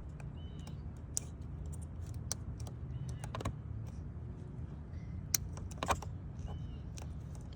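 Scattered small clicks and crinkles of hands re-wrapping a car's wiring harness at the throttle body connector, over a steady low hum.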